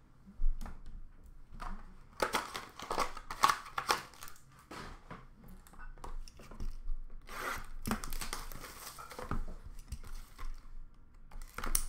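Hockey card box packaging handled and torn open by hand: irregular bursts of tearing and crinkling, the loudest a couple of seconds in and again about eight seconds in, with scattered light clicks as boxes and cards are set down.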